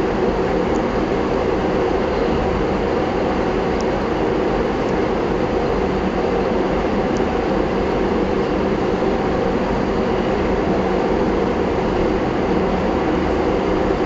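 Steady, even rushing noise with a low hum, unchanging and about as loud as the speech around it; no separate pencil strokes stand out.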